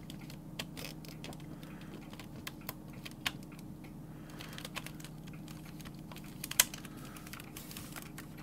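Irregular light clicks and crackles as fingers press and smooth a plastic keyboard membrane down onto the keyboard, with one sharper click about six and a half seconds in. A steady low hum runs underneath.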